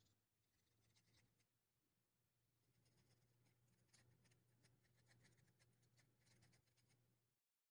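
Near silence with faint, rapid scratching and clicking of small hand work on folding-knife parts during a caged-bearing swap. It cuts off abruptly just before the end.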